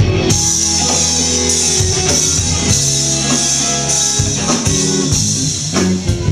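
Live rock band playing with electric guitar and drum kit. Long held notes ring through most of it over a sustained high wash, and steady drum strikes return near the end.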